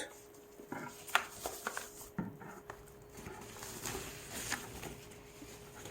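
Plastic wrapping crinkling and rustling as a keyboard is unwrapped, in short irregular crackles with a few sharper clicks.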